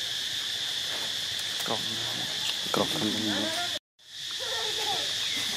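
Steady, high-pitched insect chorus droning without a break, with a few faint pitched sounds about two to three seconds in; the sound cuts out briefly just before four seconds in, then returns.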